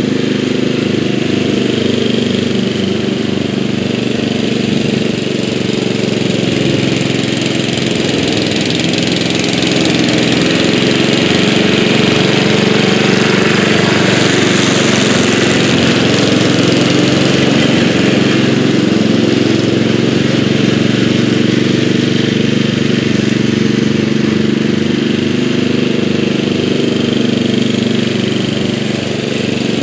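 1983 Bolens G11 lawn tractor's 11 hp Briggs & Stratton single-cylinder engine, with raised compression and a different cam, running steadily under load while its mower deck cuts tall grass. It grows louder as the tractor passes close about halfway through, then fades somewhat as it moves away.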